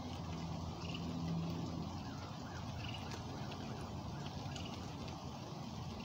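Steady low outdoor background noise, with a faint short high note repeating about every two seconds and a few light clicks.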